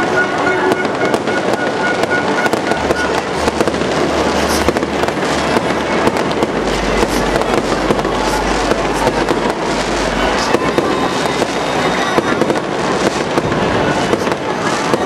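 Aerial fireworks going off in quick succession: a dense, unbroken crackle of many small bangs and pops overlapping, with a low rumble through the middle few seconds.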